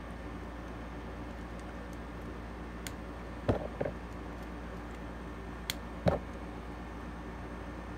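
Plastic Lego pieces being handled and pressed together: a few small clicks and knocks, a pair a little before the middle and the loudest one about three quarters of the way through, over a steady low hum.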